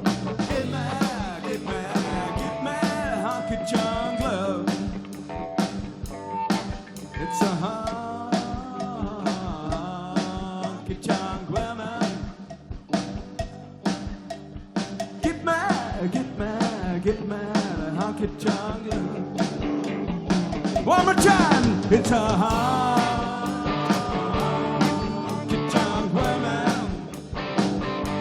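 Rock band playing a mid-tempo rock-and-roll song, the drums keeping a steady beat under bending guitar or vocal lines.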